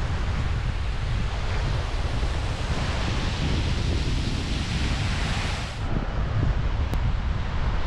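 Wind buffeting the microphone in gusts over a steady rushing noise. The sound changes abruptly about six seconds in.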